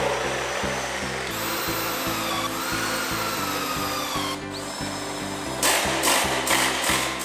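Cordless drill working into an old wooden beam: its motor whine rises, holds and falls in short runs, then several loud, rough bursts near the end as the bit bites into the wood. Background music with a steady beat plays underneath.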